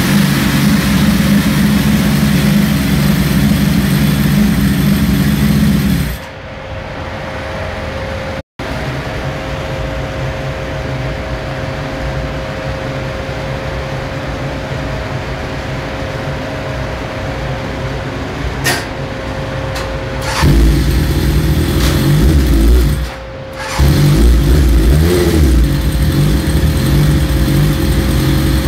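A 1992 Suzuki GSX-R's engine running on a dynamometer. It runs loud for the first six seconds, then drops to a quieter, steady run with a thin whine. It runs loud again over the last eight seconds, with a brief dip about two-thirds of the way through.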